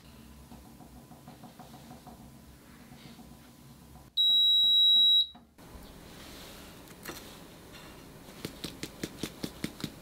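Mini toaster oven humming, then one loud, steady electronic beep lasting about a second, the oven signalling that the baking time is up. Near the end come light, even taps, about three a second, from a sieve being tapped to dust powdered sugar.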